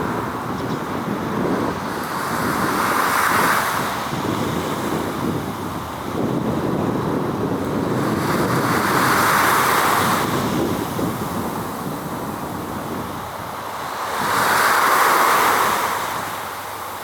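Water waves washing in, a rushing noise that swells about every six seconds, with wind buffeting the microphone underneath.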